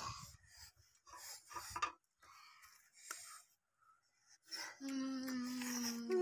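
Eating noises from boiled chicken being torn and chewed by hand: soft, scattered chewing and slurping sounds. Near the end comes a steady, held hum that lasts about a second and a half.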